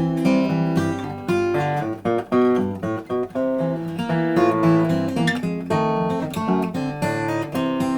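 Blueridge BR-160A dreadnought acoustic guitar being finger-picked: a steady run of plucked notes, with bass notes under a higher melody.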